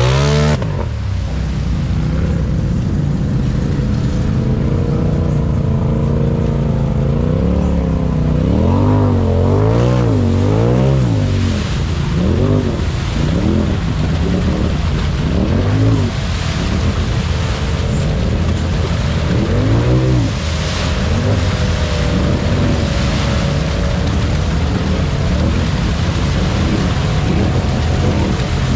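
Polaris RZR Pro XP side-by-side's engine revved up and down over and over as its paddle tires spin and churn in deep mud, with a steady drone between the revs.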